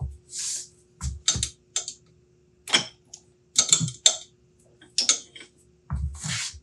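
Metal lathe tailstock being worked by hand: an irregular string of sharp metal clicks and clacks from the quill handwheel and clamp lever, with two brief hisses, one near the start and one near the end, over a faint steady hum.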